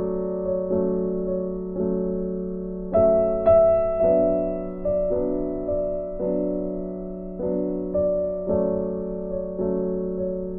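Background music: a slow, gentle piano piece, each note or chord struck and left to fade, about one or two a second.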